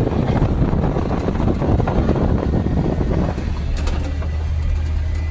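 Service truck driving, with a low engine and road rumble. About three seconds in the rough rumble eases, leaving a steady low engine hum.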